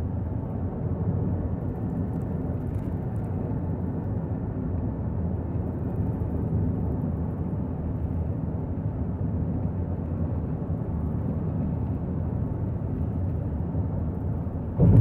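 Steady road and engine noise of a moving car, heard from inside the cabin, with a brief loud low thump at the very end.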